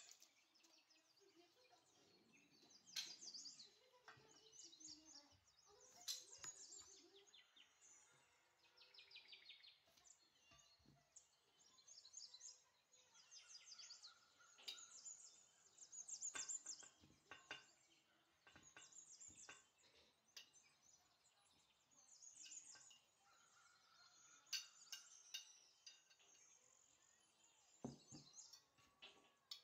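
Faint songbird chirps and trills come and go throughout, with a few light clicks and knocks from dishes and a spoon being handled against a glass blender jug.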